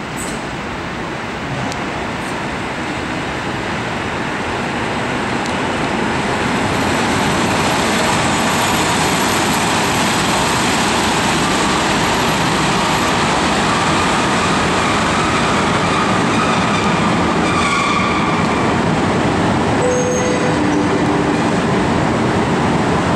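PKP class EP07 electric locomotive moving along the platform tracks, its running noise growing over the first several seconds and then holding steady, with a few brief faint squeals in the last few seconds.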